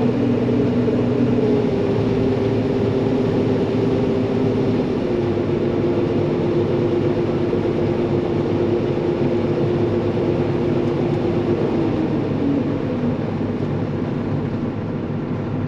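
Gleaner R52 combine running steadily while unloading grain into a truck, its engine drone stepping down slightly in pitch a couple of times.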